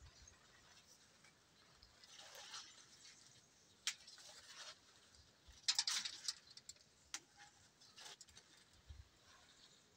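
Fig tree leaves and branches rustling in short bursts as they are pulled and handled to pick from the tree, with sharp clicks and snaps among them; the loudest cluster comes about six seconds in.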